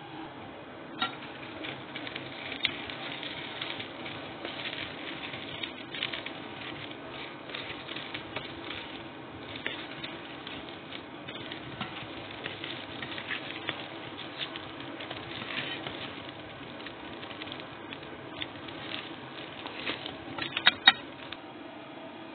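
A metal spoon stirring butter into melted chocolate in a metal pot, making a busy, irregular run of small scrapes and clicks against the pot. There are a few louder knocks near the end.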